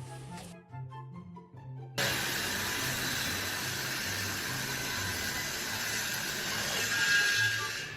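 Background music with a low bass line. About two seconds in, a loud, steady hiss cuts in over it and keeps going.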